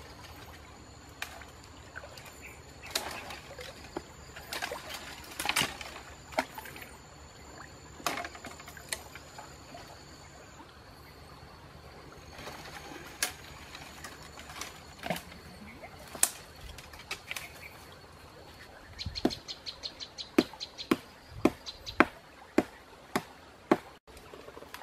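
Dry twigs and branches snapping and cracking in scattered sharp clicks that come louder and about twice a second near the end, as someone climbs through brittle brush. A faint steady high-pitched hum runs underneath, with a short quick run of ticks a few seconds before the end.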